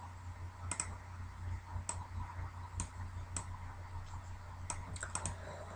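Irregular clicks of a computer mouse, about eight of them, with three in quick succession near the end, over a low steady electrical hum.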